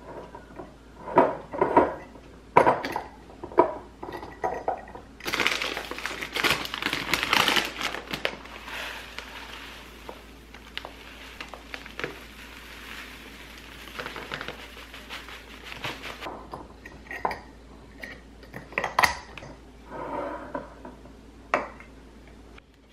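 KORKEN glass clip-top storage jars handled on a stone counter: sharp clinks and knocks of glass and the wire-clamp lid in the first few seconds and again near the end. In between, a long stretch of dry rustling and crackling from the loose rolled oats moving in the open jar.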